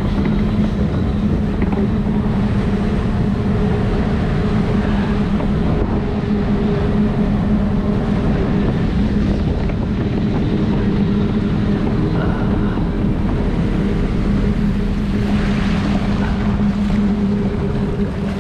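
Rushing water of a river rapids ride around a round raft, under a steady mechanical hum, with wind rumbling on the microphone.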